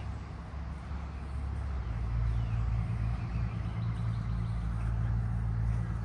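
An engine running steadily with a low hum that grows louder about two seconds in.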